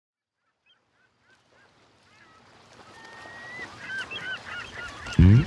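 A flock of birds calling with short repeated cries, fading in from silence and growing louder. Just before the end a much louder sound with a sliding pitch cuts in.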